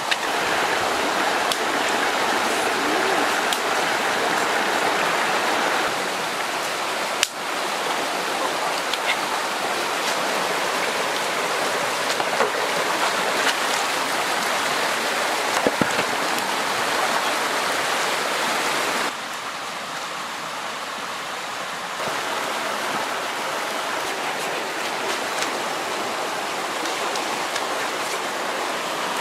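Shallow stream rushing over rocks, a steady dense water noise. Its level steps down and up slightly a few times, and there are a couple of brief clicks.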